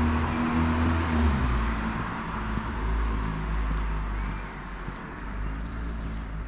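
A road vehicle's engine hums close by for the first second and a half. Its noise then fades steadily as it moves away.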